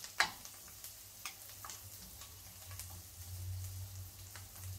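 Asparagus sizzling as it sautés in a frying pan while it is stirred with a wooden spoon, with a sharp click just after the start and a few lighter clicks and pops scattered through.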